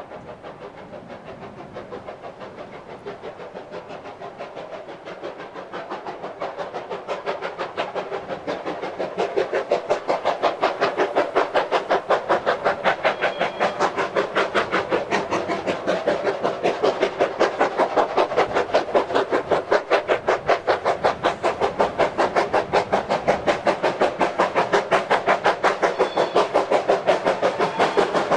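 Small saddle-tank steam locomotive working hard up a steep bank with a train of hopper wagons: a fast, even beat of exhaust from the chimney, growing louder over the first ten seconds as it comes closer, then holding strong.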